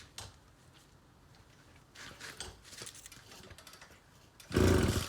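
Recoil starter of a Mitsubishi TUE26 two-stroke trimmer engine pulled once near the end, cranking the engine briefly and loudly with the spark plug out to drive flood water from the cylinder. Light clicks and handling knocks come before it.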